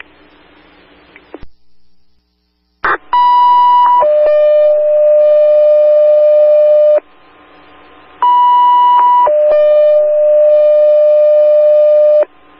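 Two-tone sequential fire-department paging tones over a scanner radio: a short higher tone followed by a longer, lower tone, sent twice. This is the dispatcher retoning the call to alert the fire department. It is preceded by faint radio hiss and a brief squelch click.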